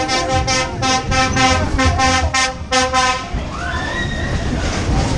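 A fairground ride's horn sounding a rapid string of short toots, about three a second, for about three seconds. A rising-then-falling whistle-like glide follows, over a steady low rumble.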